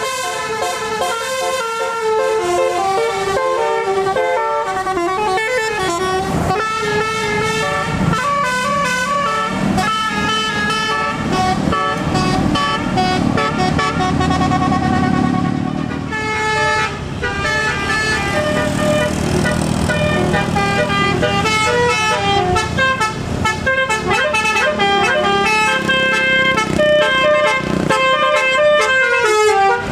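Telolet Basuri multi-tone bus horn playing a melody of quick stepped notes, with a bus engine running underneath, louder in the middle stretch.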